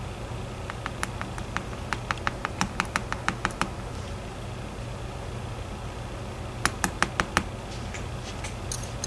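Quick runs of small, sharp clicks as a DOM IX 10 dimple lock is taken apart and its pins handled: about a dozen clicks in the first few seconds, then five more in a burst past the middle. A steady low hum runs underneath.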